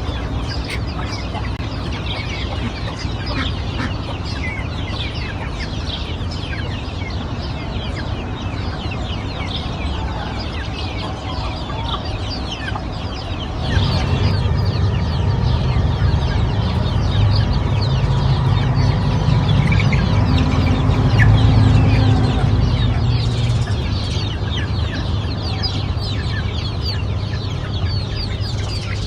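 A flock of chickens clucking, with many short high chirps throughout. A low rumble comes in about halfway through and stays under them.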